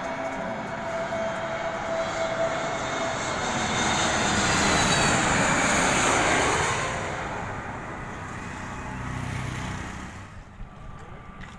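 Twin-engine jet airliner on final approach passing low overhead. A steady engine whine is heard at first, then the rushing jet noise rises to its loudest about five to six seconds in and fades away.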